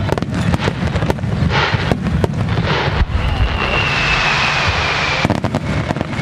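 Rapid-fire starmine fireworks display: a dense run of bangs and crackling shell bursts. About halfway in, a stretch of hissing carries a faint whistle that slowly falls in pitch.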